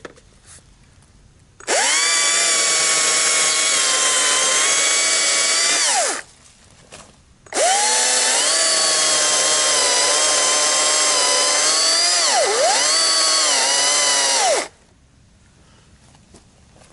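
Stihl MSA 200 C battery chainsaw running in two bursts while cutting into a log: a high electric motor and chain whine. The first burst lasts about four seconds and the second about seven. In the second burst the pitch sags briefly and recovers, and at the end of each burst the pitch falls away as the motor stops.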